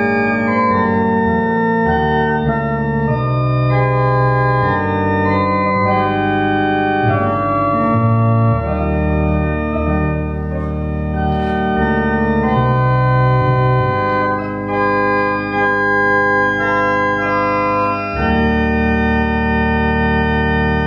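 Church organ playing a hymn tune in held chords over a moving bass line, with no singing. There are brief breaks between phrases past the middle.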